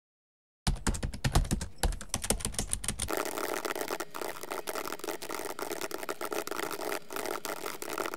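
Computer keyboard typing: a fast run of key clicks starting under a second in. A deep rumble lies under it for the first couple of seconds, then a steady noisy hum.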